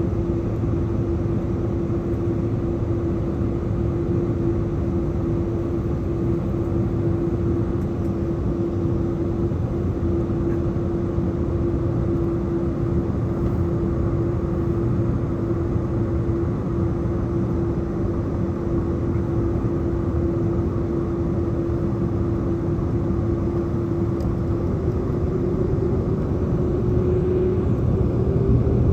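Jet airliner engines heard from inside the cabin: a steady rumble with a held hum. Near the end the hum rises in pitch and the sound grows louder as the engines spool up.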